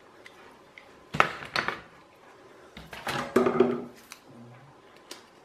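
Handling clatter of small metal motor parts and a tool: two bursts of knocks and clicks, about a second and about three seconds in, the second with a brief metallic ring.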